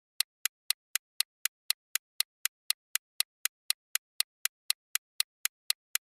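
Clock-tick sound effect marking a quiz countdown timer: short, sharp ticks, evenly spaced at about four a second, with dead silence between them.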